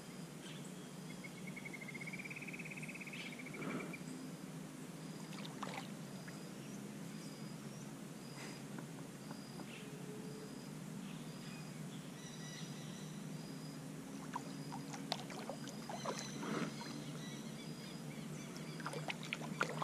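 Quiet river-side ambience: a short high chirp repeating about once a second, with a brief rapid trill a couple of seconds in. Scattered clicks and knocks come more often near the end.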